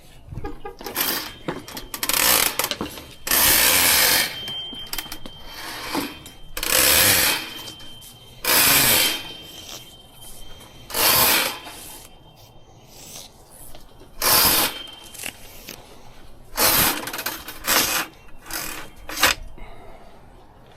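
Tool work in short, noisy bursts, each under a second, about ten of them at irregular gaps, with a faint steady high whine through the middle stretch.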